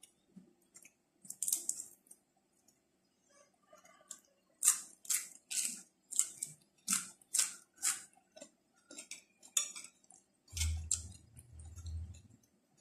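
Close-up crunching and chewing of crisp raw vegetables, a run of sharp bites about two a second. Near the end a low hum comes in.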